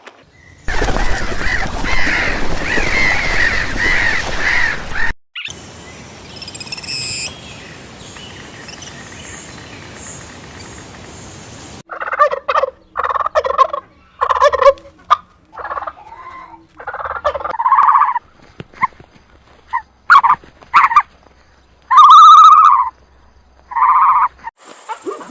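Poultry calling across several clips: first a fast wavering call over loud background noise, then a quieter spell, then a run of short separate calls with gaps between them.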